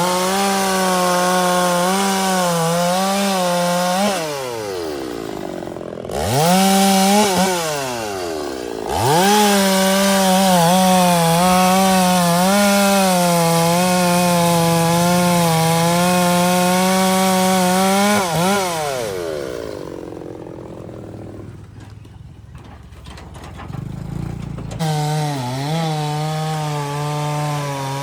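Chainsaw running at full throttle through wood, its high engine note wavering under load. It drops and revs back up twice in the first part, then falls away for several seconds in the later part before coming back near the end.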